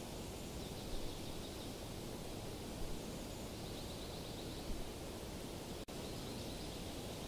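Steady outdoor background hiss with faint, high chirping in it. The sound cuts out for an instant about six seconds in.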